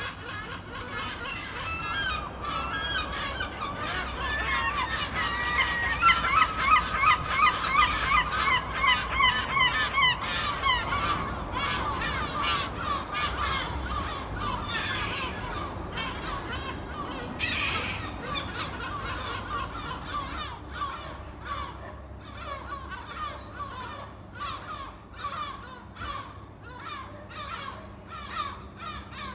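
Flock of seagulls squawking: many rapid, overlapping calls, loudest in the first half. After about twelve seconds they thin out into a steadier run of separate calls.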